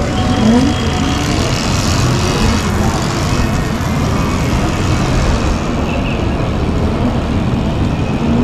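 Steady rush of wind across an action-camera microphone, with road rumble, while riding an electric scooter at speed.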